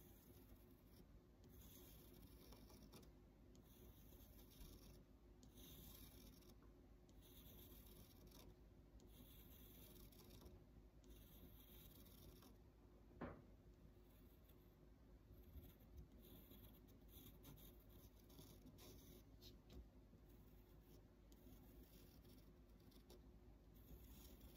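Faint scratching of an HB graphite pencil drawing hatching lines across paper, in short repeated strokes about one a second. A single light tick comes about halfway through.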